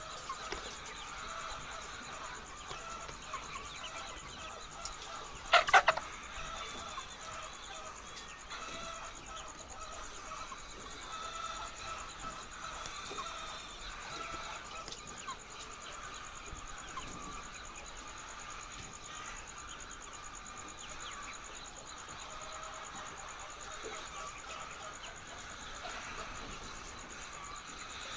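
A large flock of chickens on an egg farm clucking and calling together as a steady din, with one loud, short squawk about six seconds in.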